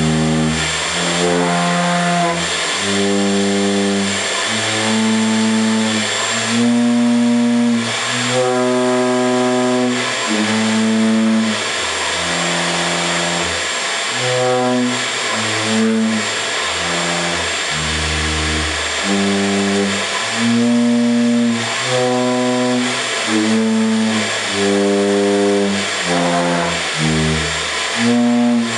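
Wooden pipe organ pipes blown by air from a shop vac hose, sounding a slow tune of held notes one or two at a time. The shop vac's motor gives a steady rushing hiss underneath.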